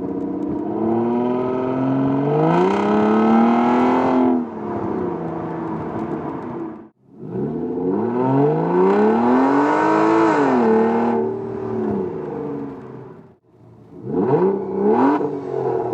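Aston Martin DB9's 6.0-litre V12 on its stock exhaust, revving hard in three cut-together runs. In the first two the pitch climbs steeply under acceleration, then drops back and holds; the third, near the end, is two quick sharp revs.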